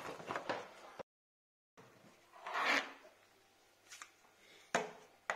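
Handling noise of a plastic battery-powered transfer pump being picked up and turned in the hand: rustling and rubbing, louder about two and a half seconds in, with a couple of sharp clicks near the end. The sound cuts out completely for a moment about a second in.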